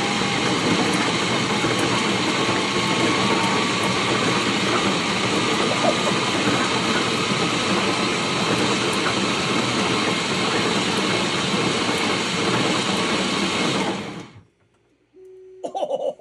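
Kitchen blender's motor running on its lowest setting, driving a 3D-printed gearbox that turns a large gear cube: a loud, steady whirring. About two seconds before the end it is switched off and cuts out almost at once.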